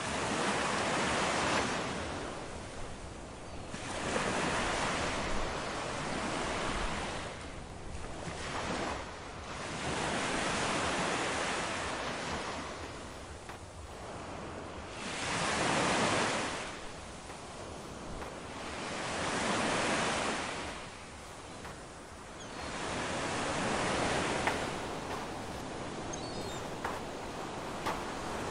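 Ocean surf washing onto a sandy beach, each wave swelling up and falling away again every three to four seconds.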